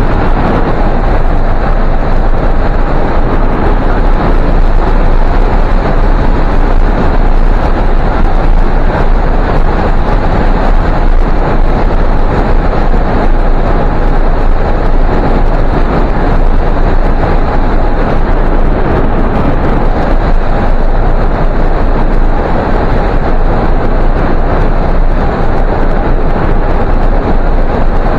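Loud, steady wind noise from air rushing past the microphone on a hang glider in flight.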